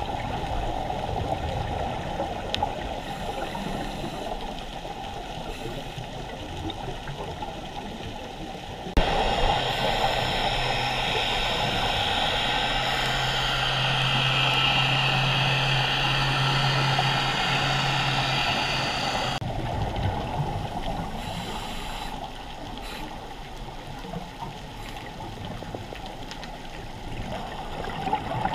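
Underwater ambience picked up through a dive camera's housing: a steady, muffled rush of water noise with gurgling. About a third of the way in it turns abruptly louder, with a low steady hum under it, and drops back about two-thirds of the way through.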